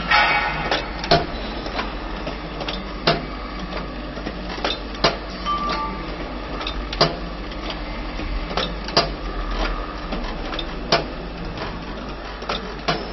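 Tea bag packing machine running: its mechanism clacks with a sharp knock every second or two over a steady hum, with a louder burst of clatter just as it starts.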